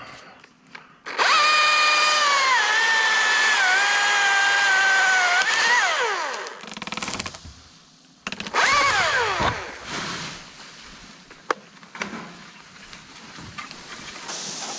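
Chainsaw revved and cutting for about four seconds, its pitch dipping as the chain bites into the wood, then winding down; a second short burst near the middle trails off the same way. A few faint knocks follow.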